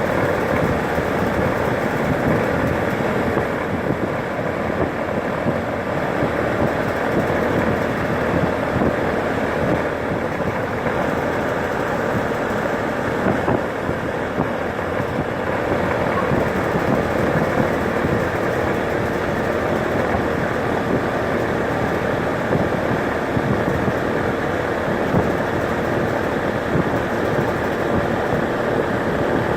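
Rheem air conditioner running steadily: an even rush of air with a few faint steady tones in it.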